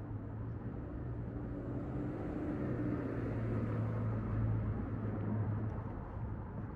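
Low, steady mechanical hum that grows louder toward the middle and then fades again.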